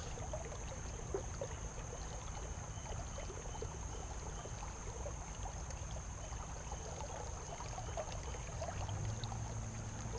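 Creek water flowing steadily, a continuous rushing with small trickles and splashes; the creek is running high after heavy rain.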